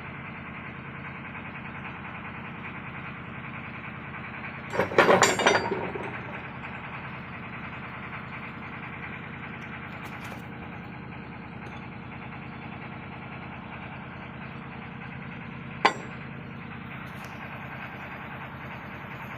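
Metal parts of a marine gearbox's oil distributor clattering and knocking in a loud burst of about a second as they are handled and taken apart, with one more sharp metallic click later. A steady machine hum runs underneath throughout.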